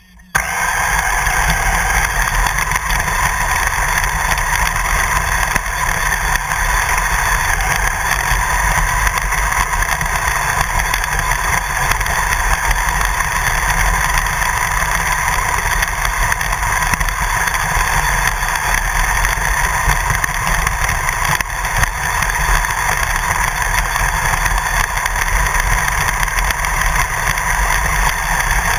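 Radio-controlled car running across grass, heard from a camera mounted on its body: a loud, steady mechanical running noise that cuts in abruptly and then holds with little change.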